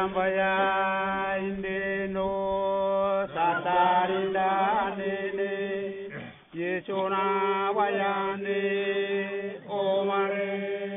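Background music: a chant-like melody that slides in pitch over a steady low drone, with a brief break about six seconds in.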